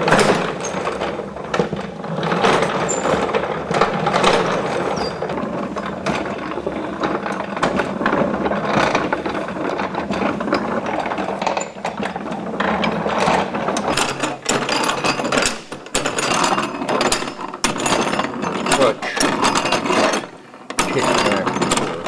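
Antique hand-lever wooden-tub washing machine being worked back and forth, its gearing and flywheel mechanism clattering with rapid clicking.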